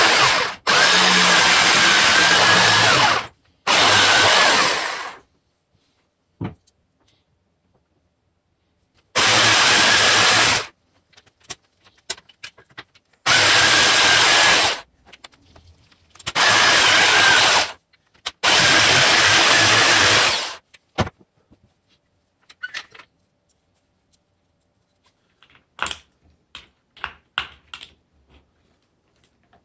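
Black & Decker electric jigsaw sawing a mahogany blank, run in short bursts of one to three seconds that start and stop about seven times. In the last third only scattered light clicks and knocks.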